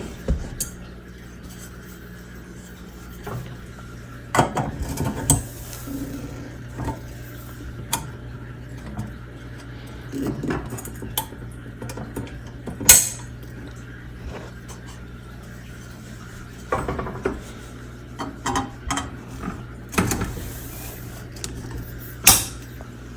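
Frame parts of a Home Depot animatronic being handled and snap-locked into its base: scattered clinks, clacks and knocks, several louder ones, over a faint steady low hum.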